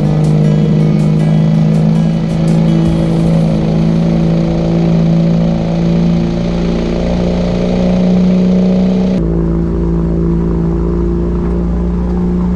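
Toyota Land Cruiser FJ60's inline-six engine running steadily at a constant speed while the truck drives along a gravel track. About nine seconds in, the sound changes abruptly to the muffled drone and rumble heard inside the cabin.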